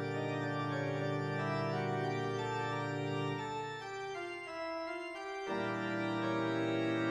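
Organ music playing held chords. The low notes drop away about four seconds in and come back suddenly about a second and a half later.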